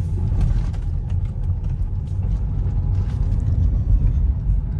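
Car being driven slowly: a steady low rumble of engine and road noise.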